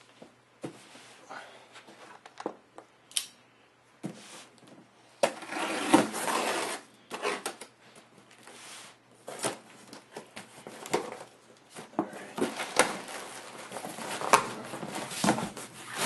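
Cardboard shipping box being opened by hand: irregular tearing, scraping and knocks of cardboard as the flaps are pulled open, with longer rustling stretches and a crinkle of plastic air-pillow packing near the end.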